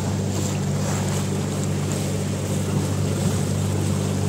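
Canal tour boat's motor running with a steady low hum, over the rush of water around the hull.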